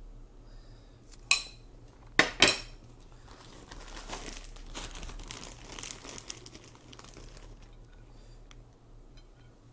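A spoon and dishes clink sharply, once about a second in and twice more a second later. This is followed by several seconds of a plastic salad bag crinkling as it is opened and handled.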